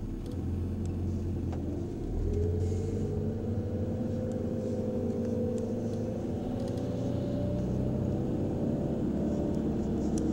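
An engine running steadily, its low hum drifting slowly in pitch.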